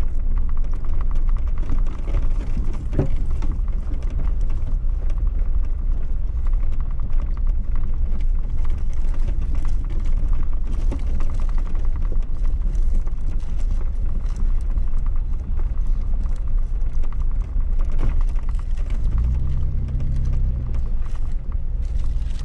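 Jeep driving slowly over a rough, bumpy dirt trail: a steady low rumble of engine and tyres with constant rattling from the body, a sharp knock about three seconds in, and the low engine note swelling briefly near the end.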